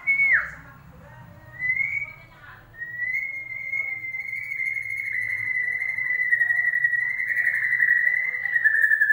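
White-rumped shama song played as a lure for a captive shama: a short falling whistle, a brief rising note, then one long wavering whistled note held for about six seconds, sinking slightly in pitch near the end.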